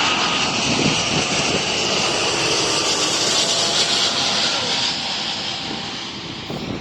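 Jet airliner passing low overhead on its landing approach, its engines loud and steady, then fading over the last second or two.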